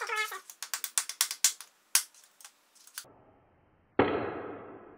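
A run of quick light metallic clicks and taps, then about four seconds in a single hard soft-faced mallet blow on a file's tang used as a punch on a vise handle. The steel rings and dies away over about a second.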